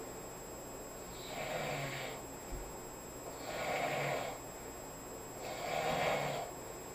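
A sleeping person snoring: three snores, each about a second long, about two seconds apart.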